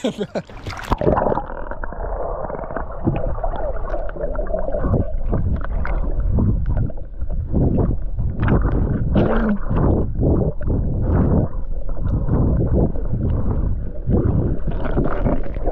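Shallow sea water heard underwater through a submerged camera microphone: muffled gurgling and rumbling with irregular surges. The sound turns dull about a second in, as the camera goes under.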